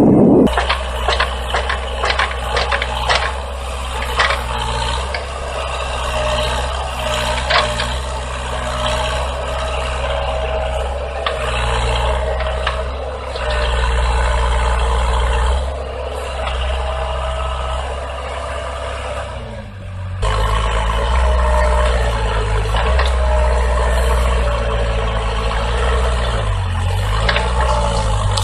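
Heavy diesel machinery running with a steady low drone, with scattered metallic knocks and rattles; the engine sound changes abruptly about two-thirds of the way through.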